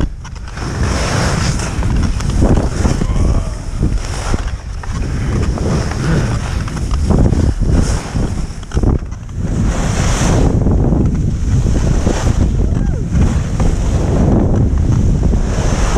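Wind rushing over a helmet-mounted microphone during a fast downhill run, with the hiss of a sit-ski carving through snow. The noise swells and eases every second or two as the turns link.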